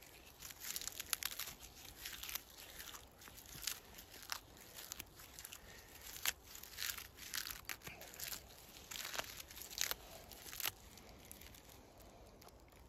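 Dry, papery birch bark being picked and torn off a trunk by hand: a run of small irregular crackles and tearing sounds that stops about two seconds before the end.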